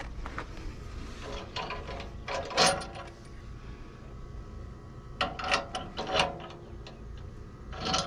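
Metal clinks and rattles of bolts and an adjuster being worked by hand on a tractor's three-point hitch stabilizer bar. They come in two bursts of quick knocks, with another knock near the end.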